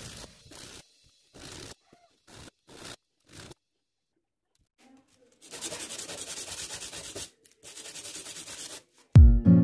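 A ring carved from a date pit rubbed by hand on sandpaper: a few short strokes, a pause of about two seconds, then two runs of quick back-and-forth rubbing. Loud background music with a beat comes in near the end.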